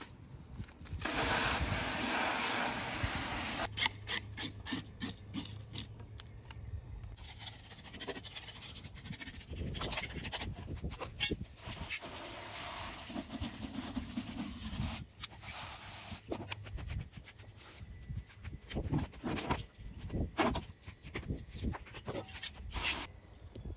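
Rubbing and scraping as a whole striped bass is cleaned in a plastic washtub, with scattered clicks and knocks against the tub. About a second in, water rushes for a couple of seconds.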